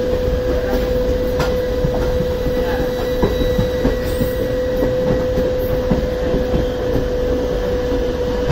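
Indian Railways passenger coaches rolling past close alongside, wheels rumbling and knocking over the rail joints, with a steady humming tone throughout.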